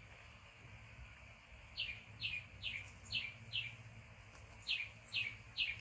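A bird calling: a run of short, high chirps, each falling in pitch, five in quick succession from about two seconds in, then three more near the end.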